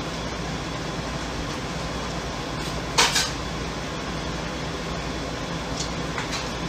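Bulldog pawing at a kitchen counter and oven door: one sharp clatter about three seconds in and a few lighter clicks near the end, over a steady background hum.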